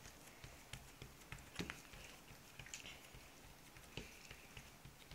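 Near silence: room tone with about four faint soft taps from small hands pressing cookie dough on a countertop.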